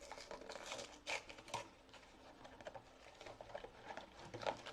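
Light irregular clicks, taps and rustling from handling small vinyl mystery-mini figures and their cardboard boxes, busiest in the first second and a half.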